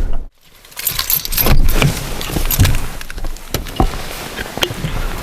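Jangling and clattering of gear being handled, with irregular sharp clicks and knocks, after a brief hush near the start.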